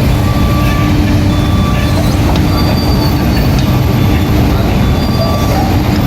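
Kobelco excavator at work: a loud, steady engine rumble with thin high-pitched squeals that come and go.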